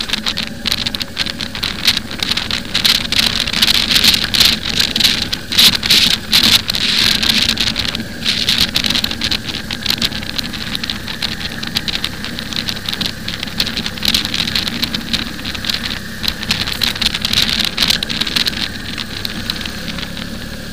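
Motorcycle under way: wind rushing and buffeting on the bike-mounted camera's microphone with irregular crackles, over a steady low engine drone.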